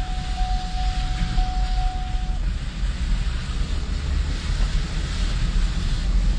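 Car driving on a wet road, heard from inside the cabin: a steady low rumble of engine and tyres under a hiss, with a thin steady tone over it that stops about two seconds in.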